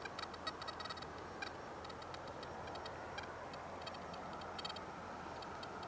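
Faint, irregular ticking and clicking, scattered throughout, over a low steady background hum.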